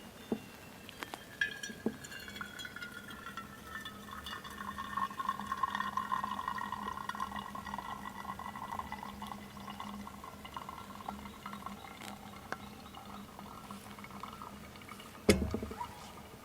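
Liquid being poured, with a ringing tone that slides down in pitch over a few seconds and then holds. One sharp knock near the end.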